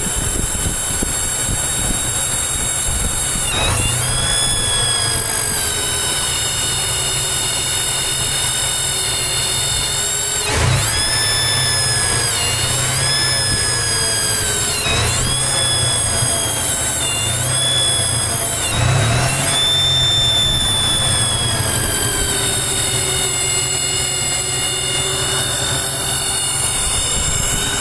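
1995 Chevrolet S10's throttle-body-injected engine idling with a high-pitched vacuum-leak whine, then revved up and let back down about six times before settling to idle again. The whine comes from a leaking TBI base gasket.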